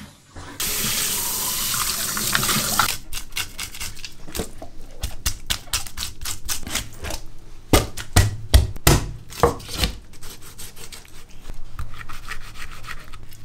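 Water running for about two seconds, then a cleaver scraping the scales off a whole fish on a wooden chopping board: quick rasping strokes, about three a second, with a few heavier knocks against the board near the middle.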